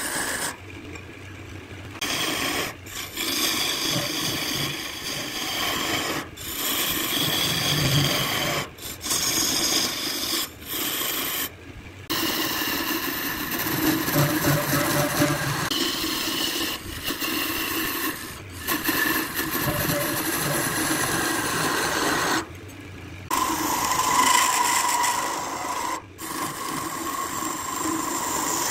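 A turning tool cutting a spinning bowl blank of colored pencils glued with epoxy on a wood lathe: a continuous scraping rasp of the cut, broken by several brief pauses.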